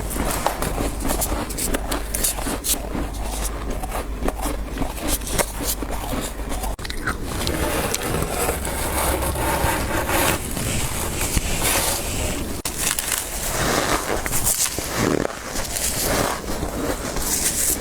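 Thick frost build-up being scraped off by hand, a continuous run of dense scraping and crackling.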